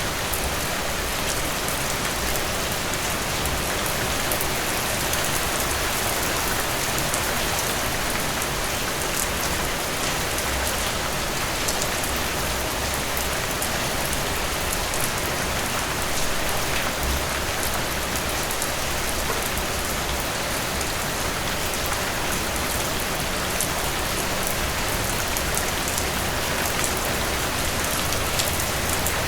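Steady rain falling on a surface, an even hiss with many small drop patters.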